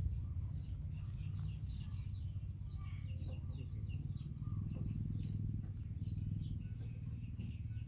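Small birds chirping, many short high calls scattered throughout, over a steady low rumble.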